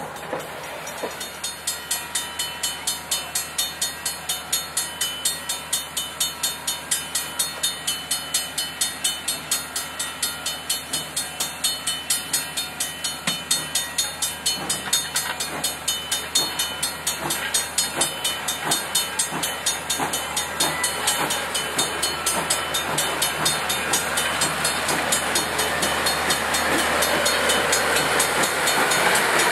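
Railroad crossing signal bell ringing in an even, rapid rhythm of a few strikes a second while passenger coaches roll past over the crossing. Over the last few seconds the rolling noise of the cars and a hiss grow louder and cover the bell.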